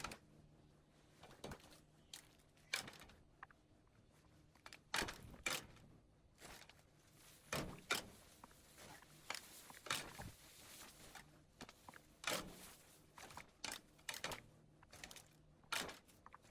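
Faint, irregular light knocks and clicks of things being handled and set down, a dozen or more spread unevenly, over a low steady hum.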